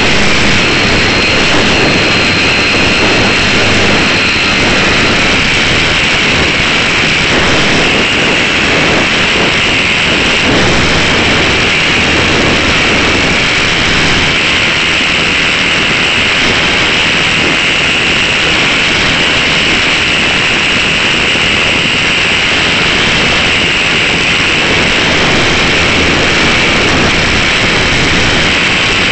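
Onboard sound of a Slow Stick electric RC plane in flight, heard through a keychain camera mounted on it: a loud, steady rush of propeller and wind noise over the electric motor's drone.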